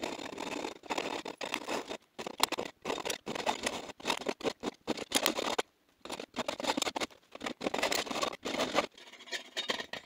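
Hacksaw sawing back and forth through the stainless-steel wall of a Hydro Flask insulated bottle, a rough rasping stroke after stroke. It stops briefly about two seconds in and again just before six seconds, and the strokes turn lighter near the end.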